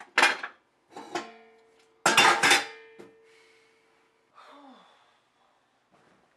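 Metal pots, pans and cutlery clattering and banging down in three loud bursts, the last leaving a pan ringing with a steady tone for about two seconds. A short, faint low sound follows.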